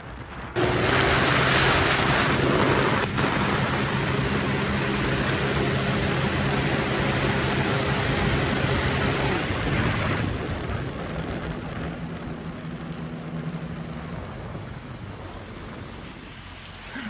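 Sea-Doo RXT-X personal watercraft's supercharged three-cylinder engine going to full throttle about half a second in and running flat out at its top speed of about 77 mph. About ten seconds in the throttle is let off and the engine drops to a lower, quieter run as the ski slows.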